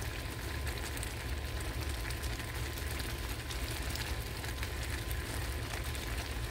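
Cut corn simmering in butter and water in a skillet, bubbling with a fine, steady crackle, over a steady low mechanical hum.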